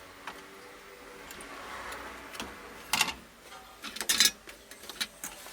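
Sharp clicks and light metallic clatter of desoldering work on a circuit board, a desoldering pump and hand tools, with two louder clicks about three and four seconds in.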